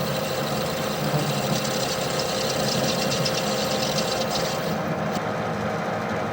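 Metal lathe running steadily, with a scratchy cutting sound from the tool on the work that stops about three-quarters of the way through.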